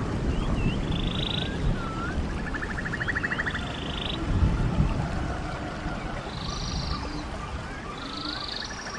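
Running stream water under repeated calls: short slurred curling notes, each followed by a rapid buzzy trill, about four times over. The calls are birdsong.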